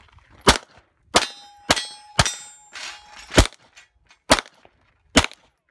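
About seven shots from a 9mm Glock pistol in quick, uneven succession during a stage run. After several of the shots, hit steel targets ring.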